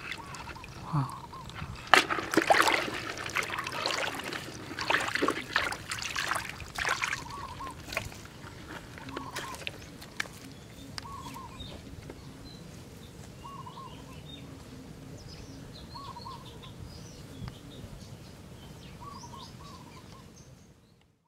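Muddy water splashing and sloshing in a shallow puddle for several seconds, then quieter. A bird repeats a short call every couple of seconds, with higher chirps from other birds near the end, before the sound fades out.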